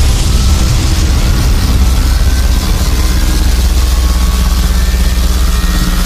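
Time-travel warp sound effect: a loud, steady, deep rumbling drone that sounds like an engine, with faint higher whistling tones over it.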